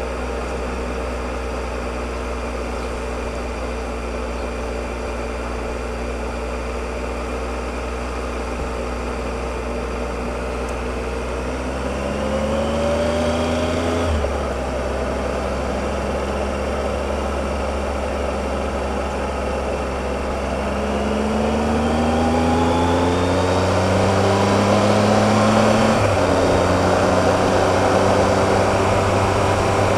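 Triumph Explorer motorcycle engine running steadily under a rush of riding wind, then pulling up in pitch twice, about halfway through and again later, each climb ending in a sudden drop at a gear upshift.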